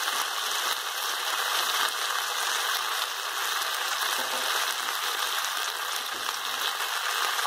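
Chicken and cream corn sizzling steadily in a hot wok, an even hiss with no break.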